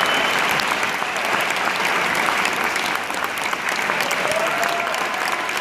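Audience applauding: a steady mass of clapping hands that does not let up.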